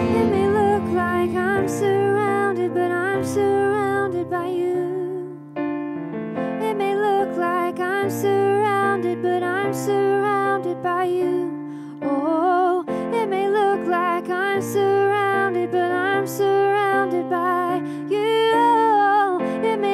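Live instrumental worship music: a violin melody with vibrato and an upward slide about halfway through, over sustained keyboard chords and acoustic guitar.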